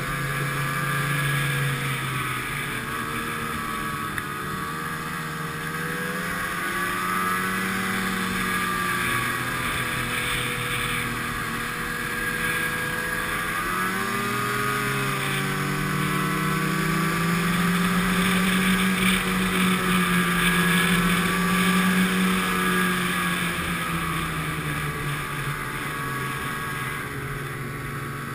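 Snowmobile engine running under way along a trail, its pitch rising and falling with speed. It eases off about halfway through, then picks up again and runs loudest a little after.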